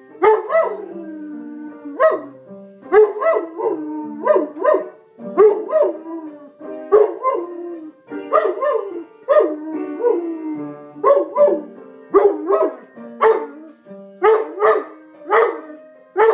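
German Shepherd-type dog barking along with music: a long run of short, pitched barks, many sliding down in pitch and often coming two at a time, over music with steady held notes.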